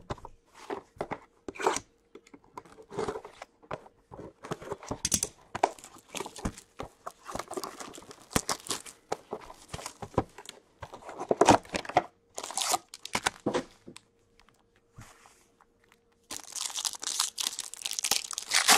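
Plastic shrink-wrap being cut and pulled off a cardboard card box, crackling and crinkling in irregular bursts. About two seconds before the end, a foil card pack is torn open with a dense, continuous crinkle.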